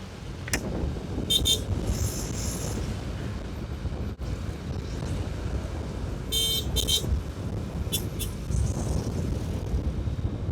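Several short, high-pitched vehicle horn toots, about a second in, at two seconds, at six and a half seconds and at eight seconds. Underneath runs a steady low road and wind rumble from a moving scooter.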